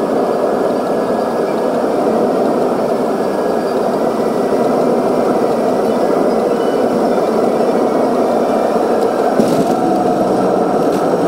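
Steady roar of airflow and jet engines heard inside an airliner cabin on final approach, with a faint steady whine. About nine and a half seconds in there is a brief bump as the wheels touch down on the runway, and the roar changes after it as the spoilers are raised.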